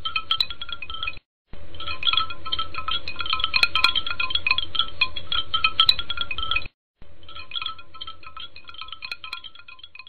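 Background music of tinkling chimes, cut by two brief silences, about a second in and near seven seconds in, then fading away near the end.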